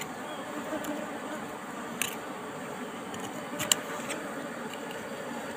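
Knife blade clicking and scraping against rock and wax while cutting out a wild Asian honeybee (Apis cerana) comb, a few sharp clicks, the loudest about two thirds of the way in. Under it runs the steady hum of the bees.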